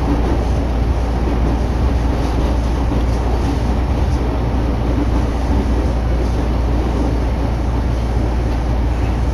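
Inside a Sobu Line commuter train running at speed: a steady, loud low rumble of wheels on the rails with a faint steady hum.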